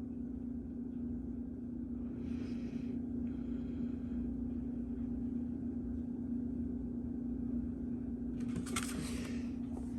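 A steady low background hum, with brief rustling and handling noise a little over eight seconds in.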